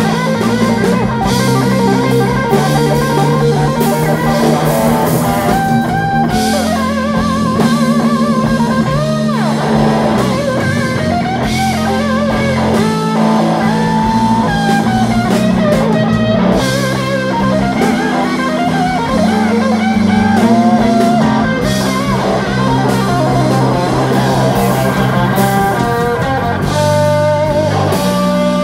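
Live blues-rock band playing an instrumental passage: an electric guitar lead with bent notes over bass guitar and drum kit.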